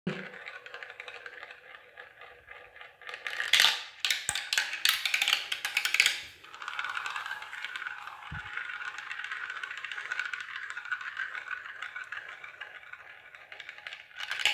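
A marble rolling on a plastic marble run: a steady whirring roll as it circles a plastic funnel bowl, with a burst of clicking and clattering about four to six seconds in as it drops through the tubes, then a long steady spin around the next funnel and a few clicks near the end as it falls into the centre hole.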